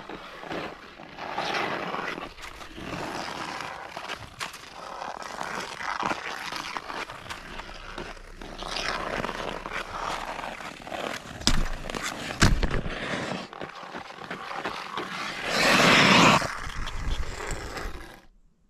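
Ice skate blades scraping and carving on outdoor rink ice, in repeated swelling strokes. Two sharp knocks about two-thirds of the way through, from a hockey stick hitting the ice or puck, and a loud, longer scrape near the end.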